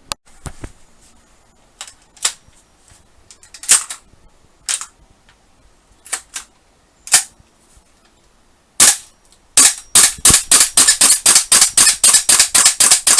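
Gas blowback airsoft rifle firing: single shots spaced a second or more apart, then from about nine and a half seconds in a rapid automatic string of about six shots a second.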